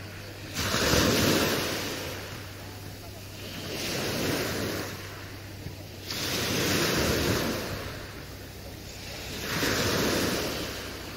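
Sea waves washing in four times, each swell rising quickly and then falling away, about every three seconds, over a faint low steady hum.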